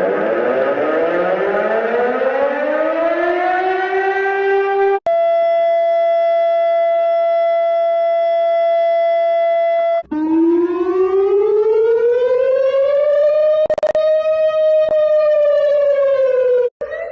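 Emergency alert alarm sounds played back to back: a siren tone winding up in pitch for about five seconds, then an abrupt cut to a steady electronic alert tone held about five seconds, then another cut to a siren wail that rises and falls, with a single click partway through.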